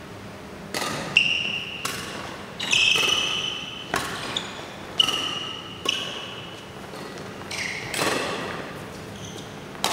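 Doubles badminton rally: about a dozen racket strokes on the shuttlecock, sharp cracks roughly one a second, several followed by a short ringing ping.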